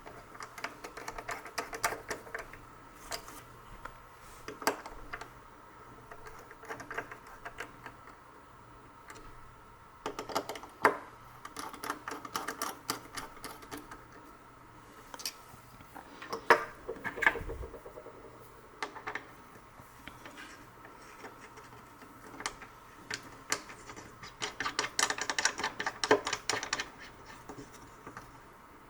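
A small screwdriver driving screws into the aluminium parts of a switch opener, giving irregular light metal clicks and scrapes, with denser runs of clicking about a third of the way in, just past the middle and near the end.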